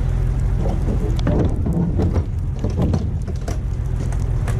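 Idling truck engine with a steady low hum, under a string of metallic knocks and short creaks as the trailer's bin doors are swung shut and latched.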